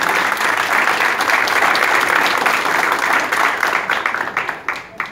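An audience applauding, dense clapping that fades away near the end.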